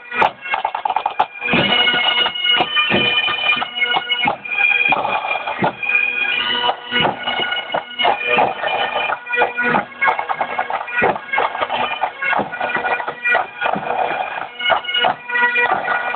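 Bagpipes playing a tune over steady drones.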